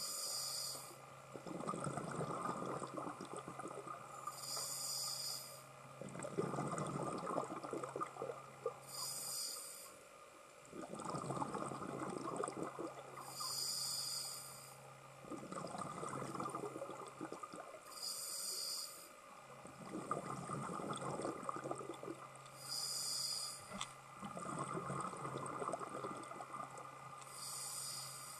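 Scuba diver breathing through a regulator underwater: a short hiss on each inhale, then a longer bubbling gurgle of exhaust bubbles on each exhale, a breath about every four to five seconds.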